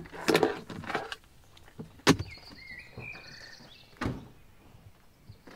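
Clicks and clunks from a car's door and lock as a spare key is tried on it: a busy patch of handling noise at first, then one sharp, loud click about two seconds in and another knock about four seconds in.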